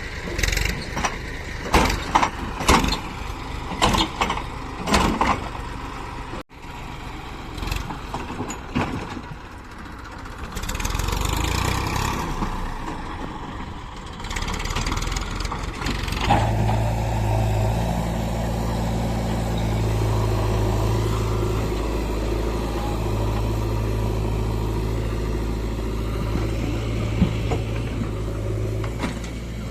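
A series of sharp knocks and clatter in the first few seconds, then a heavy diesel engine running steadily from about halfway in.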